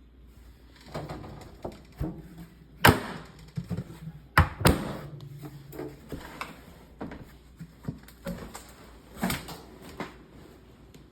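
A 12V car fridge being handled: a string of clunks and knocks with rubbing in between, the sharpest about 3 seconds and 4.5 seconds in.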